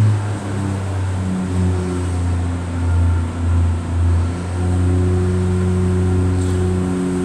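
Interior drone of a British Rail Class 142 Pacer diesel railbus: its underfloor diesel engine gives a low, steady hum. The hum wavers for the first few seconds, then settles to an even note.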